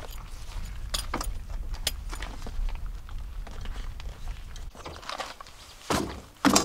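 Scattered light clicks and rattles of small hard objects being handled, with two louder knocks near the end.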